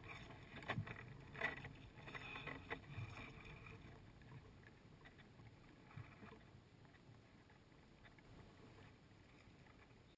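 Faint outdoor rustle with a few sharp clicks and knocks in the first three seconds and one more about six seconds in, fading toward near silence.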